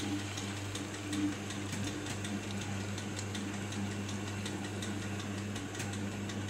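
Steady low electric hum, with faint scattered crackles from the pan of chicken stew simmering on the stove.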